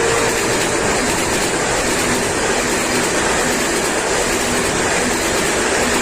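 Passenger train of new Russian-built coaches passing at full speed: a steady, loud rush of wheels on rail and air. The end of a horn blast cuts off just as it begins.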